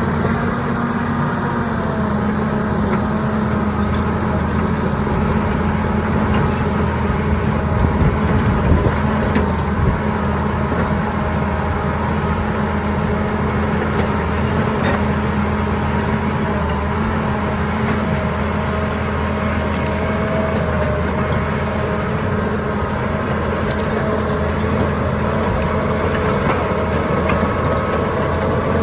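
John Deere 850 crawler dozer's diesel engine running steadily under load while pushing dirt, with a few louder clanks about a third of the way in.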